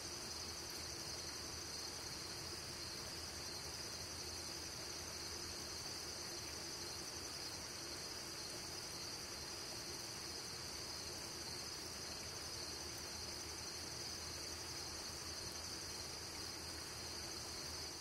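A steady chorus of crickets trilling, high-pitched and unbroken.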